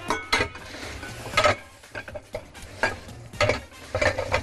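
Dishes and utensils clattering as they are handled: a handful of separate sharp knocks of crockery and metal.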